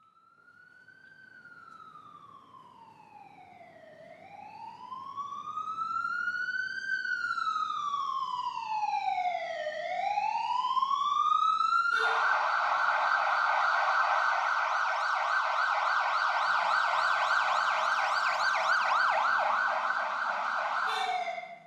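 Ambulance siren on a slow wail that rises and falls about every six seconds and grows louder. About halfway through it switches abruptly to a fast yelp, which stays loud and then cuts off suddenly near the end.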